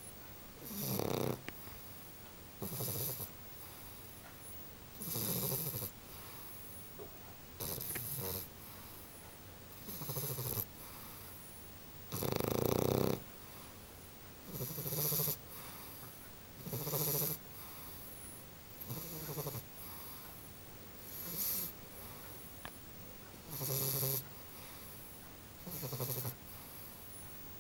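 Sleeping bully-breed puppy snoring, one snore every two seconds or so in a steady rhythm, with a louder snore about halfway through.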